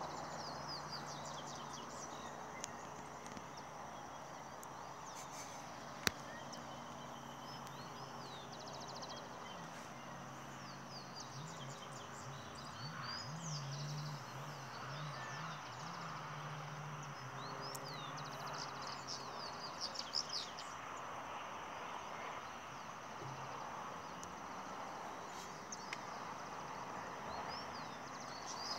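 Small birds chirping repeatedly over a steady background hiss, with a low hum that wavers in pitch around the middle and a single sharp click about six seconds in.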